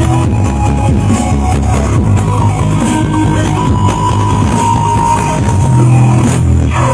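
Loud music with heavy bass played through a large sound-system rig during a sound check, too loud for the phone recording it to capture cleanly.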